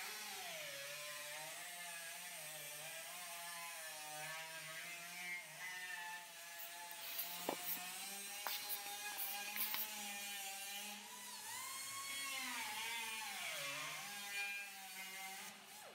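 Handheld cut-off tool whining as its spinning wheel cuts a trap door through the steel of a barrel, the pitch wavering and dipping as the wheel is loaded, with a few sharp ticks in the middle.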